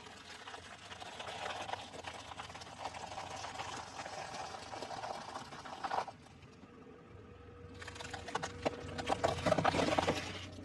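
Things crackling and crunching as they are crushed, in two spells: a long one that stops suddenly about six seconds in, then a shorter, louder one near the end.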